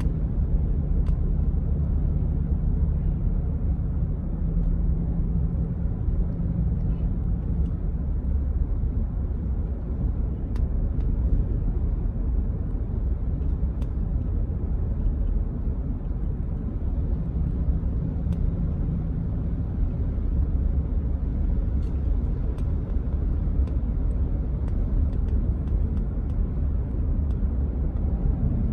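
Steady engine hum and road rumble of a car being driven at a constant pace, heard from inside the cabin.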